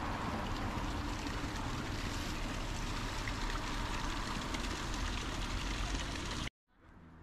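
A steady rushing noise that cuts off abruptly about six and a half seconds in, after which a much quieter low hum fades in.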